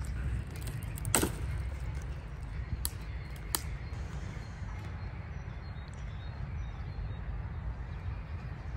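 Three sharp cracks in the first few seconds, the loudest about a second in, from dry sticks and branches being snapped for firewood, over a steady low rumble of wind on the microphone.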